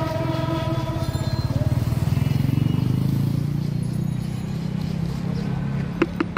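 Low, steady rumble of an idling vehicle engine, with a few sharp taps near the end from a wooden stirring stick knocking against a plastic mixing cup.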